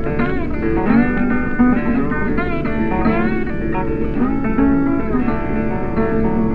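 Background instrumental music led by a guitar, its notes sliding up and down in pitch.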